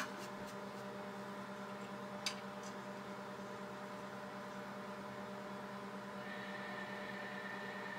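Steady electrical hum with a faint click about two seconds in; a thin high steady tone joins it about six seconds in.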